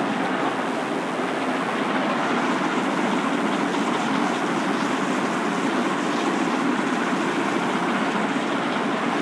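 Steady rushing background noise, even throughout, with no distinct strokes or knocks standing out from it.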